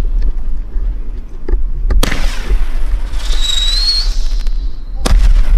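Winda Rattle Snake 7-ball roman candle firing: a sharp shot about two seconds in and another near the end. In between, a whistle rises slightly in pitch as the star climbs.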